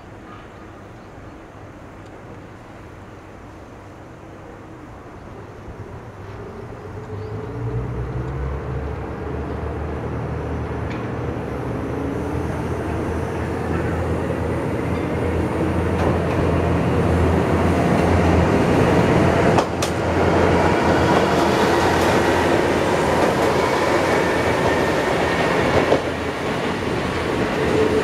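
Hitachinaka Seaside Railway two-car diesel railcar set (KiHa 37100 and KiHa 3710) approaching and passing close by, its diesel engine growing steadily louder from about seven seconds in, with the engine note climbing. A single sharp click comes about twenty seconds in.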